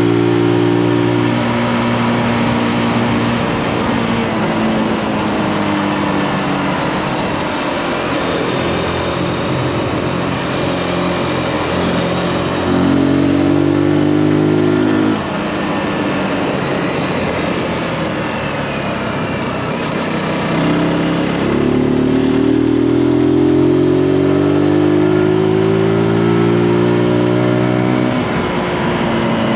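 Zontes G155's single-cylinder four-stroke engine pulling the bike along at speed, over a steady rush of wind. Twice the engine note climbs in pitch and gets louder as the throttle opens. The first climb, near the middle, cuts off abruptly as the throttle closes; the second eases off near the end.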